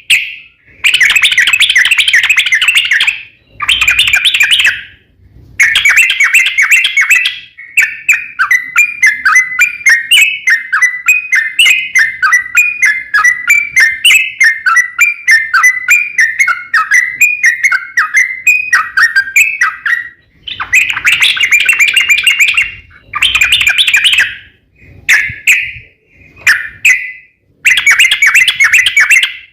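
Yellow-vented bulbul (trucukan) singing loudly and vigorously in bubbly, chattering phrases. About eight seconds in, it breaks into a long, unbroken run of rapid notes that lasts around twelve seconds, then returns to shorter bursts of song.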